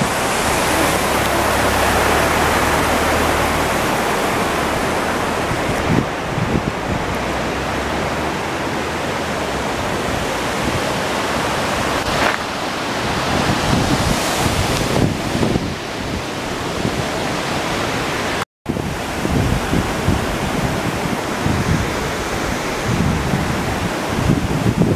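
Steady rush of a mountain river running over rocks, with wind buffeting the microphone in uneven low thumps. The sound cuts out for an instant about three-quarters of the way through.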